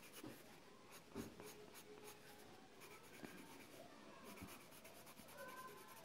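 Faint scratching of a Prismacolor colored pencil on paper, in short strokes as hair strands are shaded.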